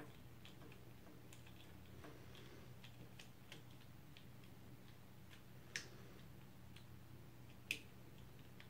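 Faint scattered small clicks and ticks of a screwdriver and small parts being handled while the screws holding a circuit board to a plastic button housing are worked, with two sharper clicks near the end, over a low steady hum.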